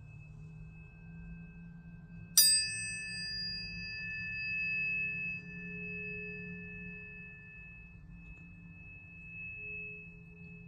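Tuning forks ringing in several steady pure tones at once. About two seconds in, another fork is struck with a bright metallic ping whose high overtones fade quickly, leaving a new sustained tone among the others.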